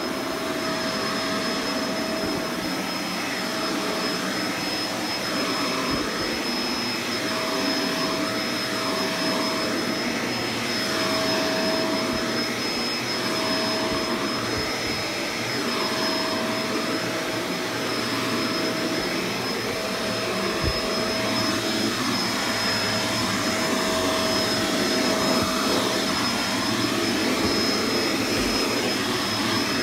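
Vacuum cleaner running steadily while carpet is vacuumed: an even rush of air under a steady, high motor whine, swelling and easing slightly as the cleaner is pushed back and forth.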